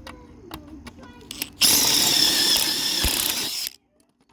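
A power drill runs in one steady burst of about two seconds with a high whine, then stops abruptly; a few light clicks of handling come before it.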